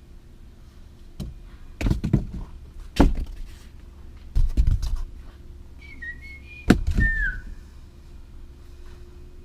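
A handful of separate knocks and thuds, about five, like things being handled and bumped. About two-thirds of the way through come two short, high squeaky or whistling tones that bend in pitch.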